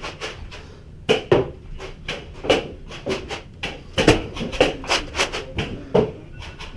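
Nerf foam-dart blasters firing and darts striking, about a dozen sharp clicks and knocks at irregular spacing, loudest about four seconds in.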